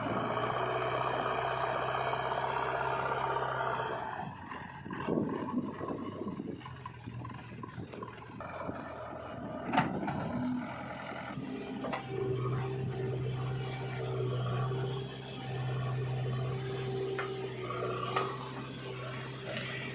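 Heavy diesel earthmoving machinery running steadily, with scraping and rubbing noise over the engine. There is one sharp knock about ten seconds in.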